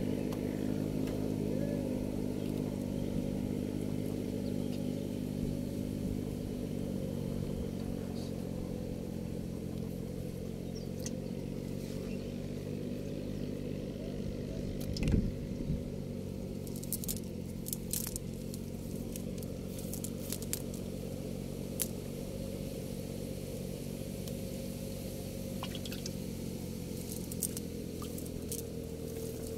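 An engine running at a steady low hum, with scattered light clicks and rustles of a mesh fishing net being handled, and one sharper knock about halfway through.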